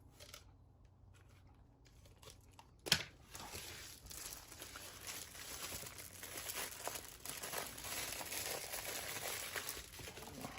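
Packaging crinkling and rustling as it is handled and opened, after a single sharp click about three seconds in.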